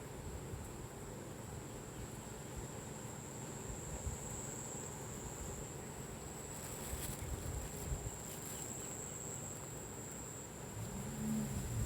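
Insects chirring in a steady, high-pitched drone, over a low rumble. A brief low hum comes in near the end.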